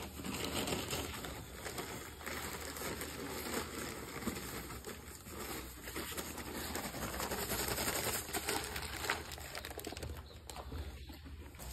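Steel shovel scraping and turning a pile of dry cement-and-sand mix on hard ground, a continuous uneven gritty scraping.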